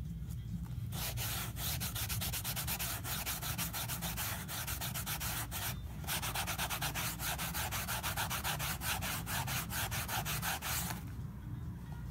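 Small sanding pad rubbed briskly back and forth along the edge of a black felt cowboy hat brim, touching up the freshly cut brim edge. Quick scraping strokes, several a second, start about a second in, pause briefly about halfway, then go on until near the end.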